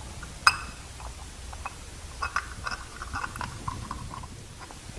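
Small metal parts of an Onan generator carburetor clicking and clinking as they are handled and fitted by hand: one sharp ringing metallic clink about half a second in, then a run of light clicks and taps.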